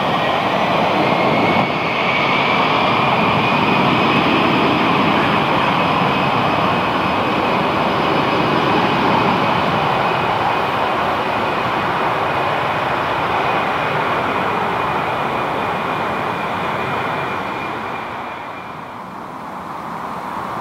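Airbus A321neo's Pratt & Whitney PW1100G geared turbofan engines running at taxi power: a steady jet rush with a thin high whine over it, dipping briefly near the end.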